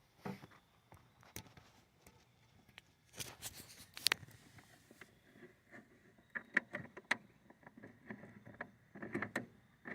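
Scattered clicks, taps and rustles of battery cables and ring terminals being handled and fitted onto a battery post, with a few sharp clicks.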